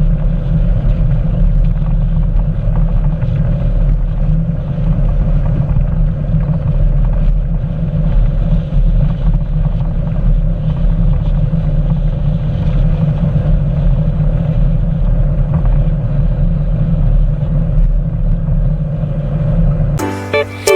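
Motorboat running steadily underway: a loud, even low rumble.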